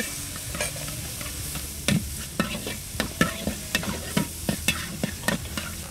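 Minced pork sizzling steadily in a hot wok as it is stir-fried with chili paste, while a metal spatula scrapes and knocks against the wok, the knocks coming quickly and irregularly from about two seconds in.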